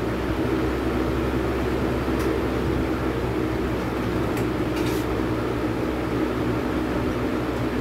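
Steady hum and rush of air from glassblowing studio equipment running, with a few faint light clicks about two seconds in and again around four and a half to five seconds in.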